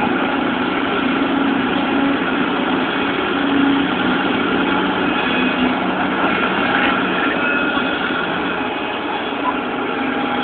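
Bulldozer's diesel engine running steadily.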